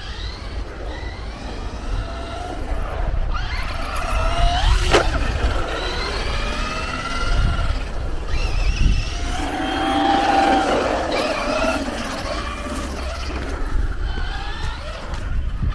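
Traxxas Rustler 4x4 VXL radio-controlled stadium truck being driven hard on a 2S LiPo, its brushless motor whining with the pitch rising and falling as the throttle is worked. One sharp knock about five seconds in.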